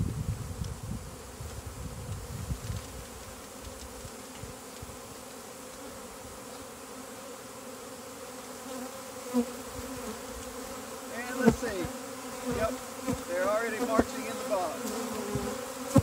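A swarm of honeybees buzzing in a steady hum, just shaken down onto a hive box. In the second half, single bees fly close past, their buzz rising and falling in pitch as they go by.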